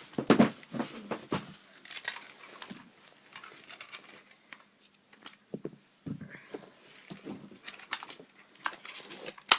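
Handling noise from a plastic airsoft rifle being picked up and moved about: irregular clicks, knocks and rustles, with sharp louder clicks at the start and just before the end.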